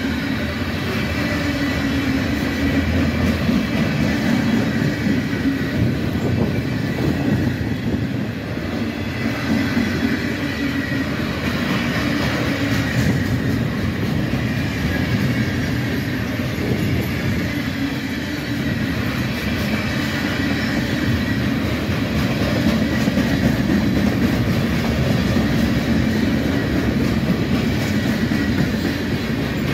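Freight train of loaded flatcars rolling past close by: a steady, continuous rumble and rattle of steel wheels on the rails, with a faint thin high whine riding over it.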